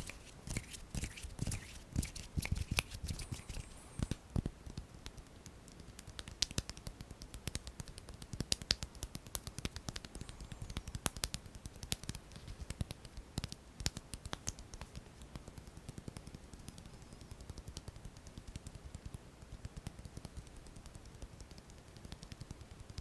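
Close-miked ASMR hand sounds: fingers and hands tapping and rubbing, making a long run of quick, irregular dry clicks, denser and louder in the first few seconds.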